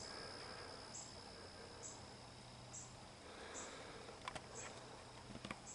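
Faint outdoor ambience: a steady thin high-pitched insect trill with a soft chirp repeating about once a second, and a few small clicks near the end.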